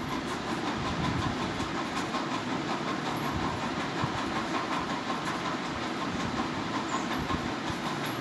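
Pen scratching on notebook paper while writing, a steady rough hiss made of many small scrapes.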